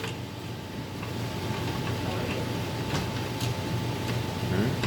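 A steady low mechanical hum with a thin steady whine above it, and a few light plastic clicks as the printer's rear door is fitted back on.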